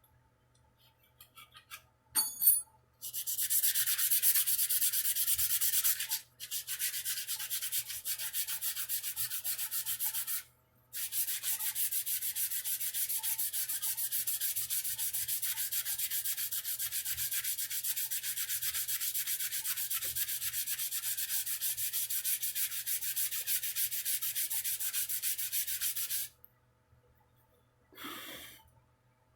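Sandpaper being rubbed by hand over a wooden guitar neck in quick back-and-forth strokes, making a steady scratchy hiss. It comes in three runs: a short one, a pause, a second, then a long third run of about fifteen seconds. A knock comes just before it starts, and a brief rub near the end.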